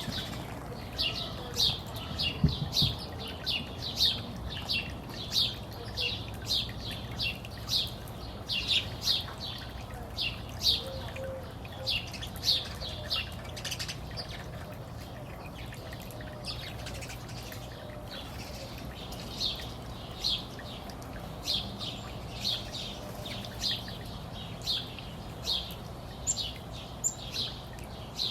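A small songbird chirping over and over: short, high chirps about one to two a second, with a pause of a few seconds midway, over a low steady hum.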